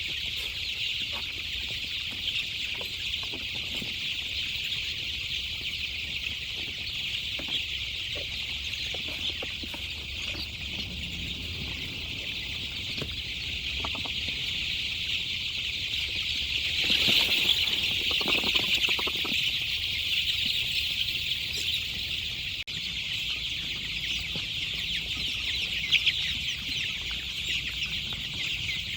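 Chickens clucking, with a steady high-pitched hiss running underneath and a louder, busier stretch a little past the middle.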